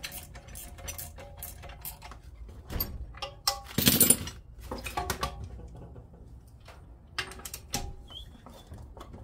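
Metal tools and engine parts being handled: scattered clinks and knocks, with a louder scraping clatter about four seconds in.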